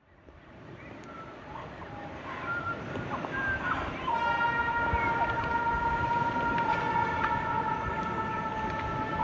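Outdoor background noise fades in, then about four seconds in a held multi-tone horn starts and sounds steadily, several pitches at once.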